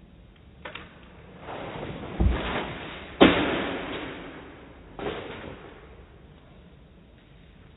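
A few sharp knocks and thumps with a rushing noise between them that swells and then fades. The loudest knock comes about three seconds in, and another about five seconds in.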